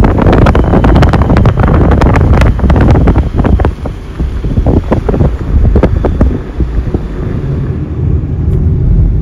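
Wind buffeting a phone microphone held at an open car window, crackling hard over the low rumble of the car driving. The buffeting eases after about six seconds, leaving a steadier rumble.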